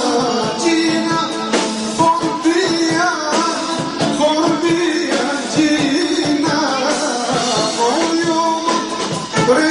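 Live Assyrian band music: a singer's voice carrying the melody over the band.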